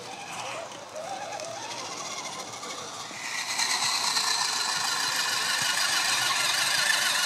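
Electric motor and gearbox of an RC rock crawler whining, the pitch rising and falling with the throttle as the truck climbs a dirt slope. It gets clearly louder about three seconds in.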